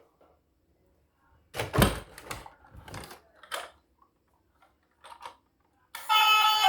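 Clicks and clacks of small hard objects being handled, typical of plastic toys and packaging during an unboxing: a cluster of them about two seconds in and a short pair later. Music starts just before the end.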